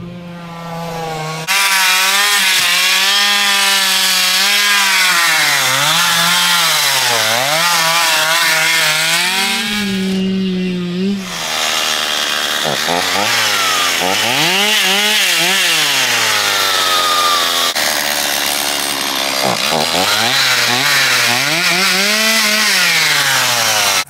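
Gas two-stroke chainsaw revving up and down again and again as it cuts through brush and branches, easing off briefly about halfway through.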